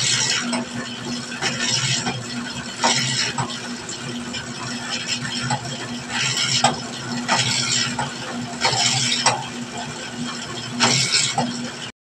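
Electric dough roller running with a steady hum while a sheet of dough is passed between its steel rollers, a short scraping sound coming every one to two seconds as the dough goes through.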